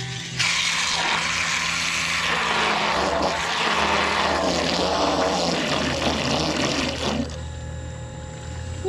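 Kayak thruster motor's propeller churning and splashing water at the surface, a loud rushing and frothing that stops about seven seconds in, leaving a low steady hum.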